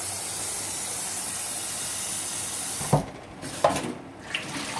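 Kitchen tap running steadily into a stainless-steel sink and a bowl of rinse water, then turned off, the sound cutting off sharply about three seconds in; a few light knocks follow.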